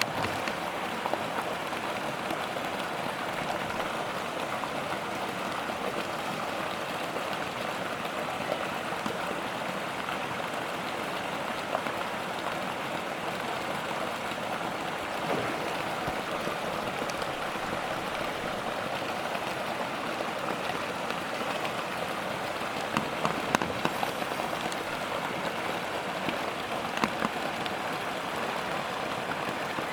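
Steady hiss of water, even and unbroken, with a few faint light clicks about three quarters of the way through.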